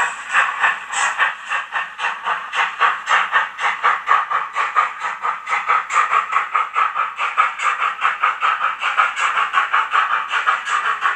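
Sound decoder of a Roco model steam locomotive, 50 3670-2, playing steady steam-exhaust chuffs through its small speaker as the train runs, about four beats a second.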